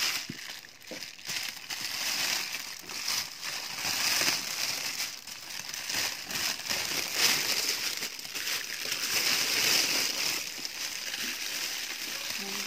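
Clear plastic wrapping and a plastic bag being crumpled and handled by hand: continuous crinkling and rustling with many irregular crackles.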